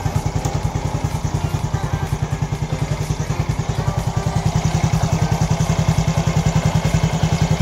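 Yamaha Jupiter Z1's four-stroke single-cylinder engine idling with an even, steady pulse, getting slightly louder. It is being warmed up briefly so the freshly changed oil circulates through the engine.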